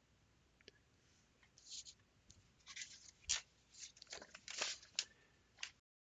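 Faint clicks and short rustles of desk handling noise, with one louder knock in the middle. The sound cuts off abruptly to dead silence near the end.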